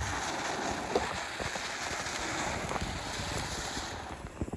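A firework spraying sparks: a steady hiss with a few faint crackles that dies away about four seconds in.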